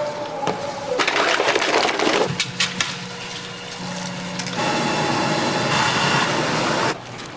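Snack-bar cooking sounds cut together in short pieces: clattering and knocking of utensils, then about two seconds of steady hiss from food cooking.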